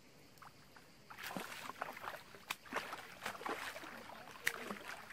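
A hooked sturgeon thrashing at the surface, splashing water in irregular bursts. The splashing starts about a second in and keeps on until near the end.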